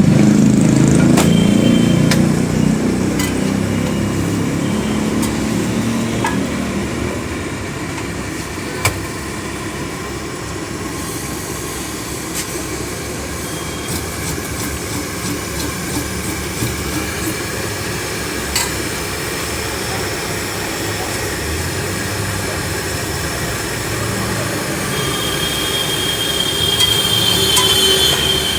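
Busy street noise: a steady wash of traffic with scattered sharp taps and clicks, and a held high tone like a horn over the last few seconds.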